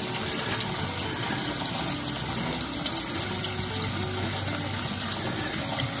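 Kitchen tap running steadily into a sink, the water splashing over fish innards being handled in the basin.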